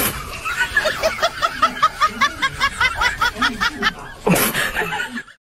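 A person laughing in a rapid, high-pitched snicker: a steady string of short rising notes, about five a second, with a brief noisy burst near the end.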